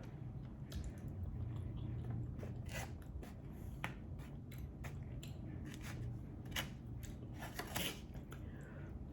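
A person chewing food with the mouth, giving wet smacks and clicks at irregular moments.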